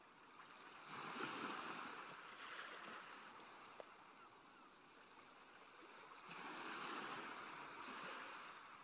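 A faint rushing noise that swells up twice and dies away, once about a second in and again near the end.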